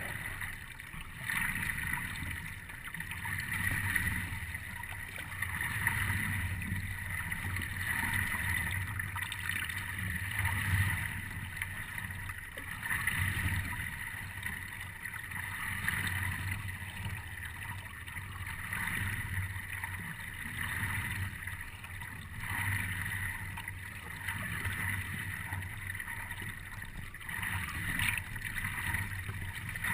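Water swishing and gurgling against the nose of a stand-up paddleboard as it glides over a calm lake, swelling and easing about every two seconds in time with the paddle strokes.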